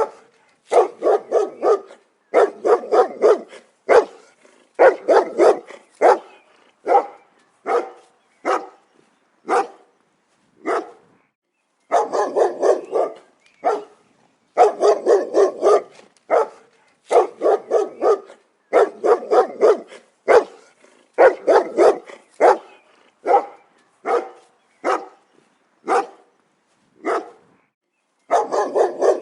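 A dog barking over and over, mostly in quick runs of three to five barks separated by short pauses, with single barks spaced out in places.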